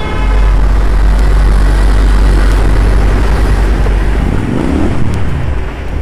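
Wind rumbling on the microphone of a motorcycle riding through city traffic, loud and steady, with vehicle engines underneath.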